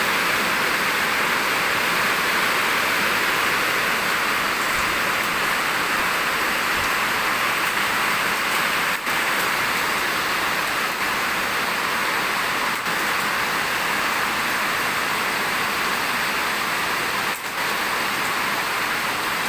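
Falling water rushing steadily: an even, unbroken hiss with no let-up.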